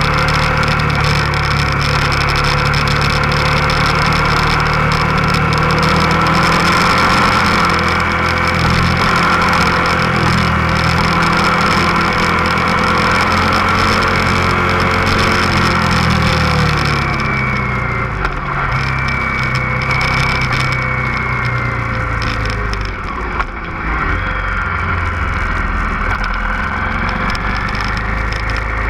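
Motorcycle engine running under way, with wind rushing over the microphone. About sixteen seconds in the engine note falls as the bike slows, and the wind noise drops away, leaving a lower, steadier engine note.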